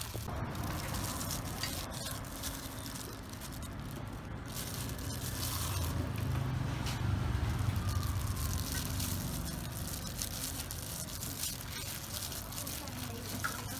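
Wet squishing and rustling as a plastic-gloved hand works glass-noodle stuffing and pushes it into a raw whole chicken, with many small scattered clicks.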